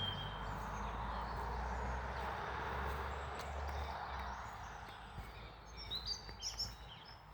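A few short, high bird chirps, one near the start and a cluster near the end, over a steady background noise that fades after about four seconds.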